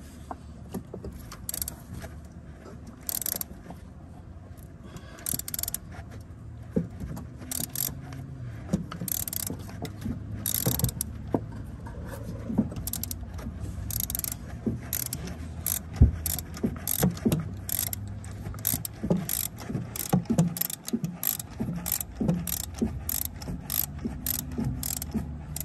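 A 3/8-inch ratchet clicking in short back-and-forth swings as it turns a spark-plug socket on stacked extensions, working a rear spark plug loose. The clicks come in irregular runs, sparse at first and quicker in the second half.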